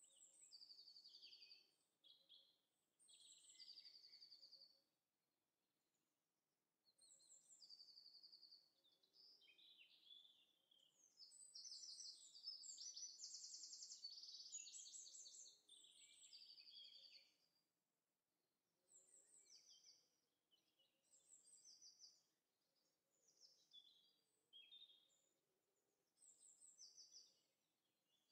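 Faint birdsong: a small songbird singing short chirped and trilled phrases again and again, with brief pauses between them and a denser run of song around the middle.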